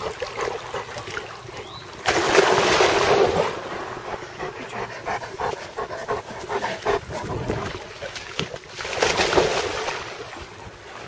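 Dogs splashing in a pond: two loud bursts of splashing water, about two seconds in and again near the end, with lighter splashing and patter between.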